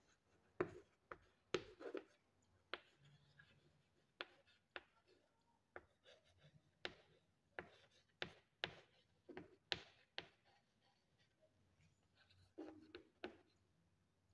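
Chalk writing on a chalkboard: faint, irregular taps and short scratches as letters are formed.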